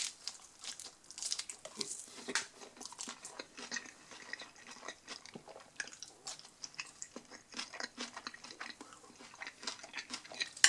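A person chewing a bite of thin, crunchy pizza crust, with many irregular crisp crunches and mouth sounds.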